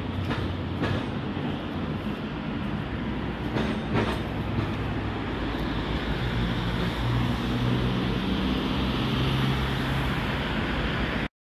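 Steady mechanical rumble and hiss of construction machinery running, with a shifting low hum and a few short knocks, about half a second in and around four seconds. The sound cuts off abruptly just before the end.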